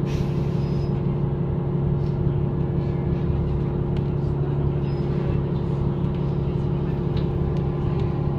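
Tour bus engine idling, heard from on board: a steady hum with a few held tones that does not change.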